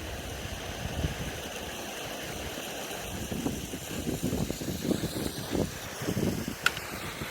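Waterfall water rushing steadily, with wind buffeting the microphone in uneven low gusts from about halfway through and a single sharp click near the end.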